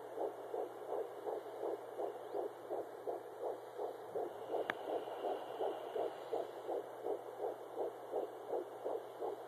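Fetal heartbeat at 10 weeks 4 days, heard through a Doppler ultrasound as a fast, even, whooshing pulse of nearly three beats a second, about 170 a minute. A single sharp click sounds about halfway through.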